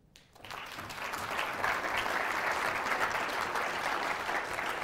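Audience applauding, a dense patter of many hands clapping that swells up over the first second and then holds steady.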